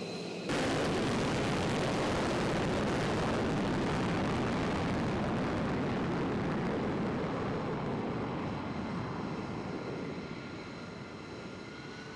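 Twin-engine fighter jet taking off on afterburner: a loud jet roar that cuts in suddenly about half a second in, then fades over the last few seconds as the jet rolls away down the runway.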